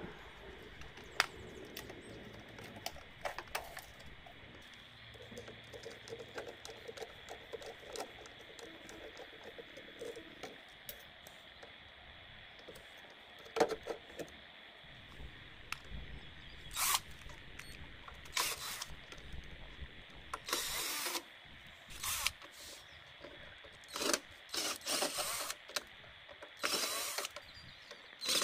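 Hands taking apart the gearbox and motor of an RC 6×6 truck: scattered clicks and knocks of small metal and plastic parts. In the second half come several short harsh sounds, each under a second.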